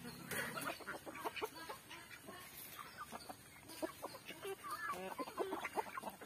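A flock of chickens clucking as they feed: many short, scattered calls overlapping one another.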